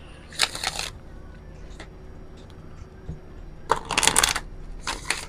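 Oracle card deck shuffled by hand, the cards rustling and slapping together in three short bursts: about half a second in, around four seconds in, and just before the end.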